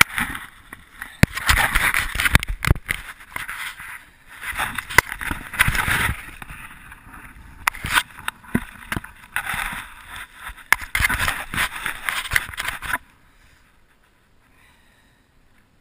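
Jacket fabric rubbing and knocking against a body-worn camera as the wearer moves, an irregular scraping rustle broken by many sharp knocks. It drops away suddenly near the end, leaving only a faint hiss.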